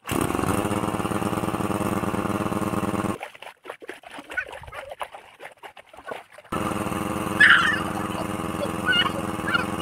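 A motor running with a steady hum, cutting out abruptly for about three seconds partway through and then coming back. A few short high calls sound over it near the end.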